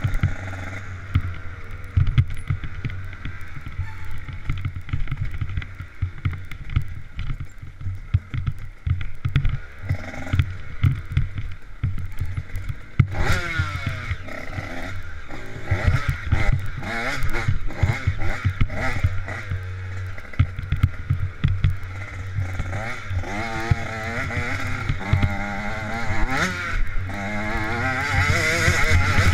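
Dirt bike engine revving up and down as it is ridden along a bumpy track, its pitch sweeping up sharply about halfway through and rising and falling repeatedly near the end. Wind buffets the onboard microphone, with many short knocks from the bumps.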